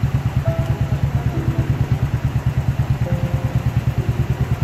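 A small engine idling close by, running steadily with an even low throb of about six or seven pulses a second. Faint distant voices are heard over it.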